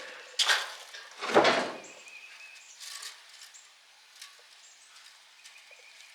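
Scrap motor parts being handled: two short scraping clatters about a second apart, then faint scattered clinks and knocks.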